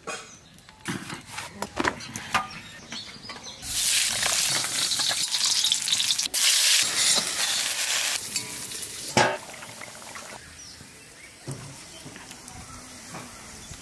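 Whole boiled eggs sizzling as they fry in hot oil in a steel wok, loud for about four seconds in the middle. Scattered taps and clicks of handling come before it and a few more after it.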